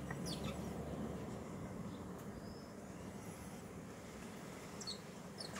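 Small songbirds at a backyard feeder giving brief high chirps: a few short downward-sliding calls near the start and again near the end. A steady low background hum runs underneath.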